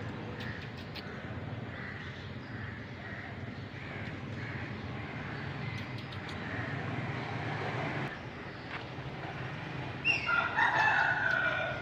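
A rooster crows once near the end, a long pitched call of under two seconds that starts with a falling note, over a steady low background hum.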